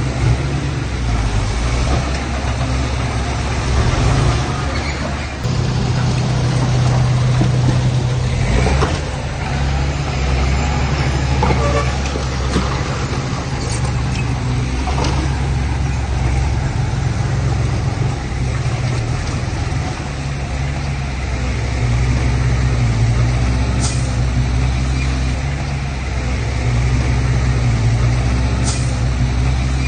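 Heavy diesel machinery engines running, with the drone swelling and easing as they work under load. A few short sharp clicks or hisses sound near the end.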